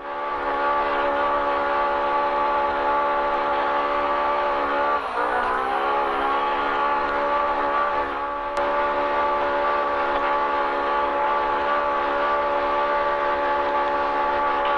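Polaris RZR Pro R UTV's four-cylinder engine held at high, nearly constant revs under full throttle, its CVT keeping the pitch almost flat. About five seconds in, the revs drop briefly and climb back up.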